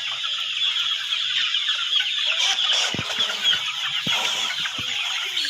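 Many chickens clucking and calling at once in a dense, continuous chorus, with a few short knocks about three seconds in, at four seconds and near the end.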